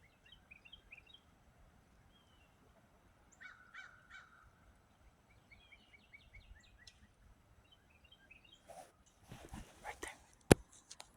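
Faint songbird chirping in short quick series of notes, then a couple of seconds of rustling and a sharp click near the end, the loudest sound.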